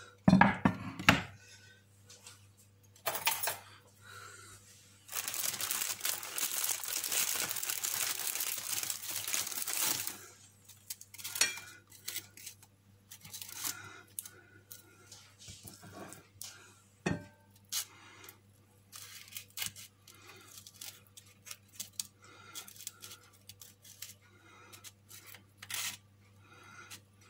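A wooden cutting board knocking down onto the counter, then about five seconds of tearing and crinkling of packaging as a pack of wafer sheets is opened. After that come light taps and clicks of wafer sheets laid on the board and a fork working chicken mince onto them, with one sharper knock partway through.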